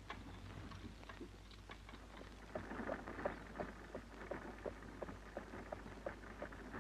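Horse's hooves clopping at about three beats a second, with the rattle of a horse-drawn buggy. It grows louder about two and a half seconds in and cuts off at the end, over a steady low hum of an old film soundtrack.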